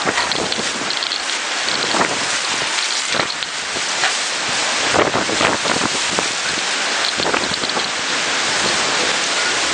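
Heavy rain pouring in a windstorm, a dense steady hiss broken by many short spatters.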